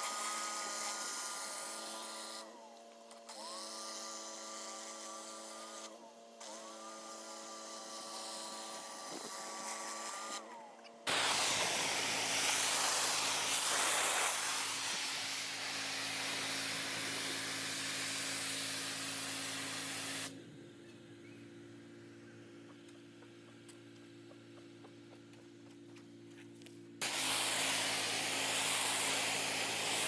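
Pressure-washing equipment running. For the first ten seconds or so a machine whines, rising in pitch each time it starts up and cutting out briefly twice. Then the pressure washer's engine runs steadily under a loud hiss of water spray. The spray stops for several seconds while the engine keeps running, then starts again.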